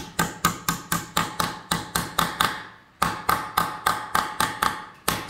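Hammer tapping a ball bearing down into its bore in the tractor's steel housing, quick metallic blows at about five a second, each with a short ring. The taps come in two runs with a brief pause about two and a half seconds in, driving the bearing home to act as a makeshift ring seal.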